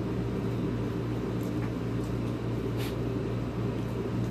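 A steady low mechanical hum, like a running motor or fan, with two faint short clicks.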